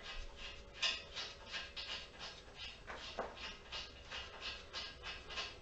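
Faint, quick scratching strokes, about three or four a second, with a stronger scrape about a second in and another about three seconds in: hand work on the steel bench top.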